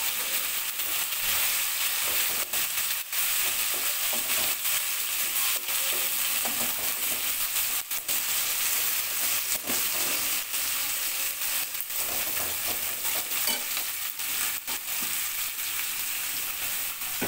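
Snakehead fish pieces and spice paste sizzling in hot oil in a metal karai, with a metal spatula scraping and knocking against the pan again and again as they are stirred.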